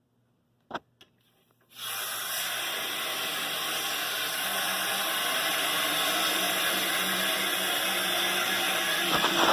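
Water rushing steadily out of a fire sprinkler system's opened test valve, starting suddenly about two seconds in and growing slightly louder. This flow is a test meant to trip the system's waterflow alarm.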